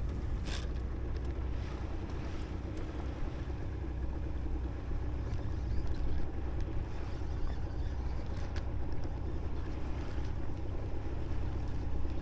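A small fishing boat on the open sea: a steady low rumble, with wind buffeting the microphone and the wash of water around the hull, and a few faint knocks.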